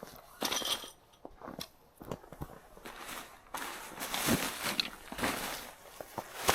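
Footsteps crunching in snow, irregular steps with short pauses, and one sharp crack near the end.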